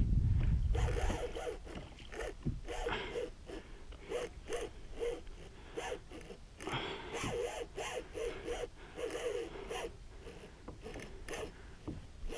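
A fishing reel working under the strain of a hooked roosterfish: irregular gear and drag clicks and rasps of line, several a second. There is a low rumble in the first second or so.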